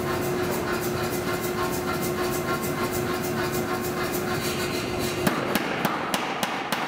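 Power hammer running, its ram pounding a hot steel bar in a rapid, even rhythm over a steady machine hum. About five seconds in the hum drops out and the blows come heavier and louder.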